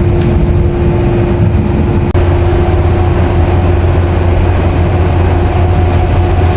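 Vehicle running steadily: a loud low drone with a constant hum, briefly dropping out about two seconds in.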